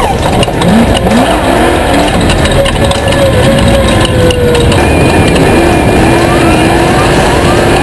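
Off-road race vehicle engines revving hard, with several quick rising runs of pitch in the first couple of seconds. One engine's note then falls slowly as it goes by, and near the end a steadier drone runs with more rising revs over it.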